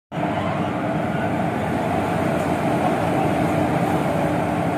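A stationary WAP-4 electric locomotive humming steadily with its pantograph raised: its blowers and auxiliary machinery running, with a steady low tone under an even rushing noise.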